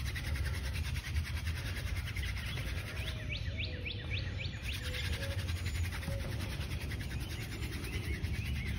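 Hand-drill friction fire-making: a horseweed spindle is twirled between the palms, its tip rubbing steadily in a tulip poplar fireboard divot as the burn-in goes on past first smoke. A bird gives a quick run of about six rising chirps a few seconds in.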